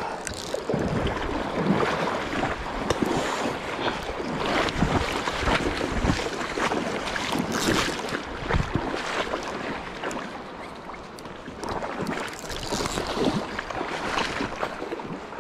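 Water splashing and churning as a hooked red (sockeye) salmon is fought in close, in irregular bursts over a steady rush of noise, with wind on the microphone.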